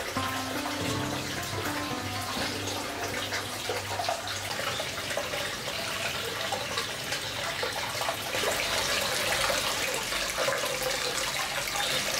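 Hot-spring water running steadily into a stone open-air bath, a continuous splashing pour that grows a little fuller after about eight seconds. Soft background music holds sustained notes in the first few seconds.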